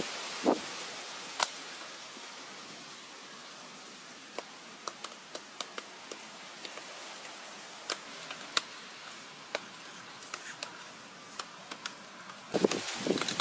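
Bare hands patting and smoothing wet cement mortar: scattered soft slaps and taps over a faint hiss, two of them louder in the first second and a half. Near the end the level jumps suddenly and a steady high whine comes in.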